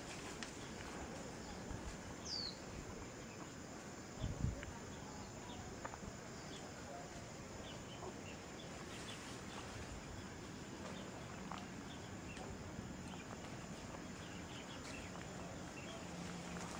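Footsteps along a dirt forest trail, with outdoor ambience and a scatter of small ticks. A single short falling bird chirp comes about two seconds in, and a low thump about four seconds in.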